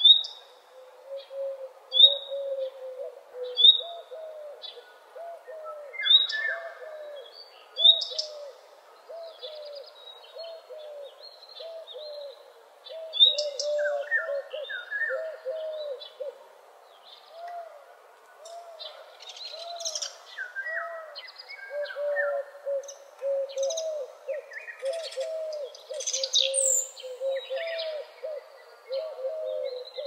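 Several birds calling together in forest: a low call repeated over and over, about one and a half times a second, under higher chirps and short whistled phrases. Sharp high chirps come every couple of seconds early on, and the higher calling grows busier in the second half.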